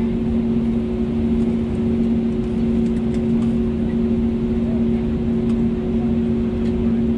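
Cabin noise of an Airbus A320neo taxiing: the engines and air conditioning give a steady hum with two constant low tones under it, and faint small ticks from the cabin now and then.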